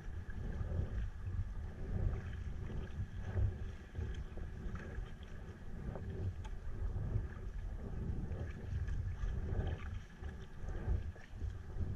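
Sea kayak under way on a windy sea: wind rumbling unevenly on the camera microphone, with water lapping and splashing against the hull.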